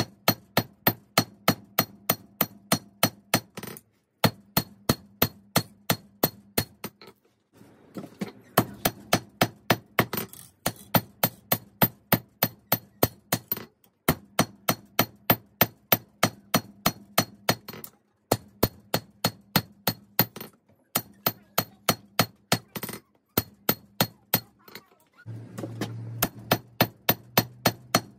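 A hammer forging 5160 spring steel on an anvil: about three ringing blows a second, in runs of several seconds broken by short pauses. A steady low hum runs underneath.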